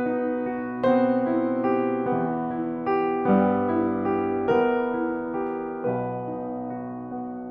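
Danemann acoustic piano played slowly, with chords struck about once a second or so and left to ring and fade.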